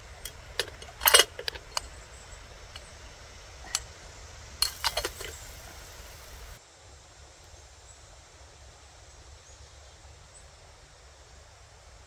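A run of sharp clinks and knocks of small hard objects striking each other, the loudest about a second in and another cluster near five seconds in. After them only a faint, steady background remains.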